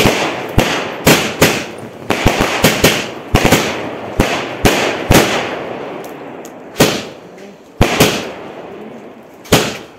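Multi-shot sky shot firework cake firing aerial shells: a rapid run of sharp bangs, two to three a second, each trailing off briefly. About halfway through they thin out to a few widely spaced bangs.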